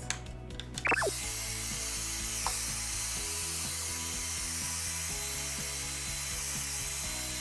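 Hand-held hair dryer blowing, a steady rushing hiss that starts about a second in after a short burst of rapid clicking. Background music with slowly changing chords plays underneath.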